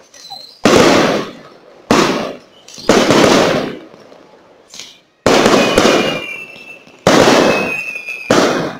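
Aerial fireworks display: five sharp shell bursts, each dying away over about a second. A thin high whistle runs through the last few seconds.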